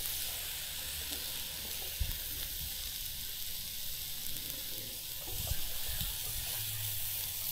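Fajita meat sizzling steadily in a pan on a two-burner camp stove, with a few soft knocks.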